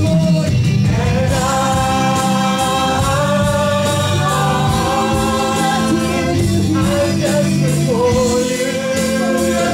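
Live worship band music: a woman sings long, held notes into a microphone, backed by electric guitar and keyboard.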